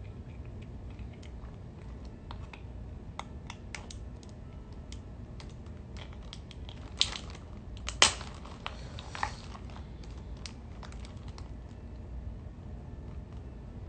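Boiled seafood shell being cracked and peeled by hand with long fingernails: scattered small clicks and crackles, with a louder cluster of cracks about seven to eight seconds in and another just after nine seconds.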